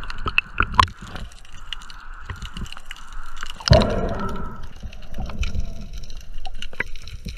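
Water sloshing and splashing around a diver at the surface, with scattered clicks. About four seconds in a loud rush of water as the diver goes under, then muffled underwater sound with many faint crackling clicks.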